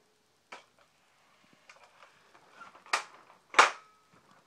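Spring-powered airsoft FAMAS rifle clicking as it is handled and readied to fire: a few sharp plastic clicks, a faint one near the start and two loud ones close together about three seconds in.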